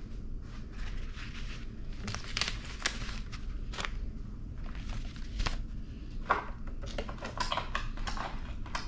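Paper and envelopes being handled and shuffled: a steady run of short, irregular rustles and crinkles, with a few louder ones near the end.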